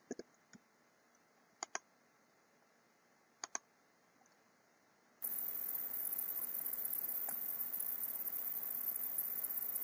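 Computer mouse clicks, among them two quick double-clicks. About five seconds in, a steady hiss starts suddenly and stays, louder than the clicks.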